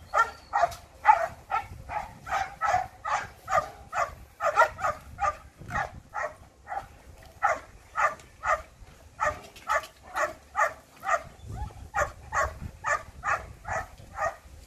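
A dog barking over and over in a steady run, about three barks a second.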